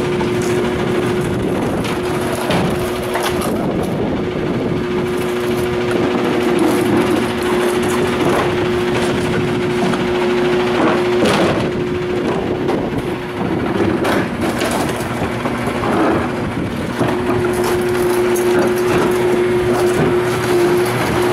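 Front-loader garbage truck idling with a steady pitched hum, while plastic trash cans are knocked and emptied into a steel commercial bin: irregular bangs and clatter.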